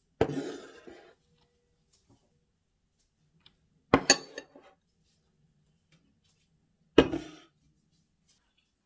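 Ceramic bowls set down on a table with a short clatter, one about a quarter-second in and another about four seconds in, then a tall aluminium beer can set down about seven seconds in.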